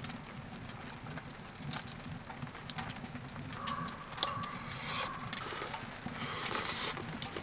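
Close-up sounds of peeling and eating a cooked shrimp by hand: small crackles and clicks as the shell is pulled off, chopsticks ticking against a metal pot, then a bite and chewing near the end.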